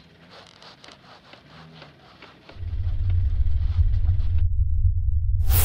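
Faint clicks and rustling of gloved hands handling a motorcycle tyre, then a loud, deep, steady rumble sound effect for a flaming logo animation, starting about two and a half seconds in. A loud hiss joins near the end.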